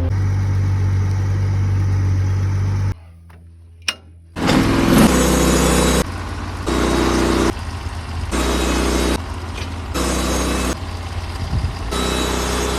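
Engine-driven portable sawmill running steadily; about three seconds in it drops away briefly with a single click, then loud sawing noise of the blade cutting through a cedar log to an 8x8 beam, stepping louder and quieter in abrupt blocks.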